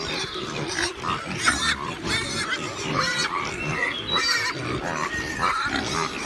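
A group of pigs grunting, with many short high squeals from several animals overlapping throughout.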